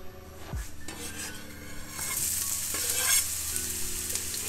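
Chopped onion scraped off a cutting board into hot vegetable oil in a frying pan, sizzling from about two seconds in.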